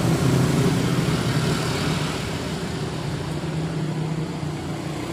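A motor running steadily with a low hum and hiss, easing slightly in level.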